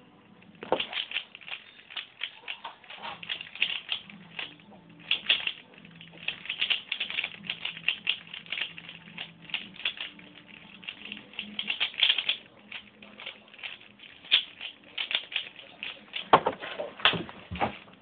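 A Rubik's cube being turned rapidly one-handed: a dense, irregular run of plastic clicks and clacks starting about a second in. A couple of louder knocks come near the end as the solve finishes and the timer is stopped.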